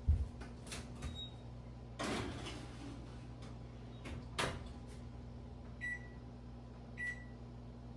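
An oven door opened, a metal baking sheet slid onto the rack with a scrape and clatter, and the door shut with a knock; near the end two short electronic beeps from the oven's keypad as the timer is set, over a steady low hum.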